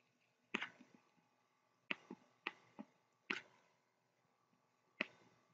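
Faint taps and clicks of a stylus on a pen tablet during handwriting: about eight short, sharp ticks at irregular intervals.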